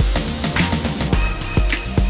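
Background music with a steady drum beat and held bass and guitar notes.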